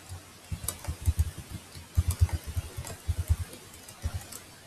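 Computer keyboard typing: irregular clusters of short, muffled key thumps with faint clicks.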